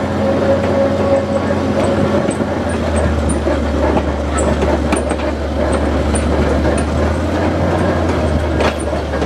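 Small diesel switcher locomotive's engine running with a steady low drone, heard from its front deck, with light metallic ticks and rattles over it and a sharper clank near the end.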